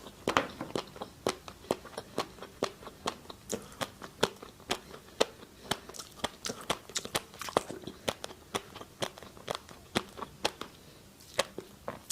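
A person chewing crunchy food close to the microphone: a quick, irregular run of crisp crunches, about three or four a second.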